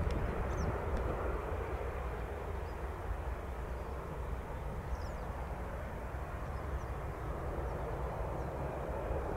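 Jet airliner on its arrival approach, heard at a distance as a steady rush of engine noise that eases slightly through the middle and builds again near the end. A few faint high chirps sound above it.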